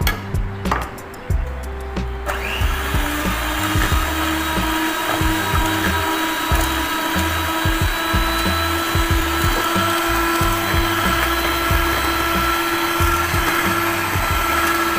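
A few knocks of a spatula against the bowls, then an electric hand mixer switches on about two seconds in and runs steadily at one speed, its beaters whirring through cake batter in a stainless steel pot.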